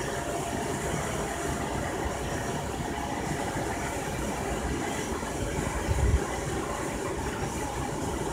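Steady low background noise, with a brief low thump about six seconds in.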